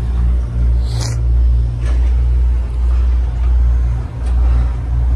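A loud, steady low rumble that swells and dips irregularly, with a few faint clicks.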